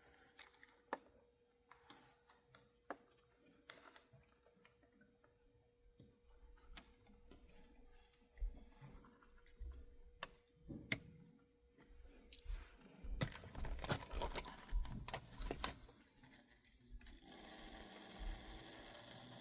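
Small clicks and taps of plastic and metal locomotive parts being handled. About 17 s in, the HO-scale locomotive's small electric motor starts whirring steadily, spinning with one drive gear taken out.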